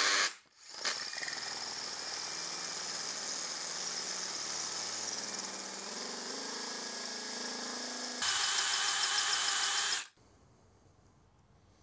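Cordless drill boring into the steel snout of a 283 small-block Chevy crankshaft through a drill-guide fixture, the bit oiled with light machine oil. After a short blip it runs steadily for about seven seconds, gets louder with a higher whine for the last two seconds, then stops suddenly about ten seconds in.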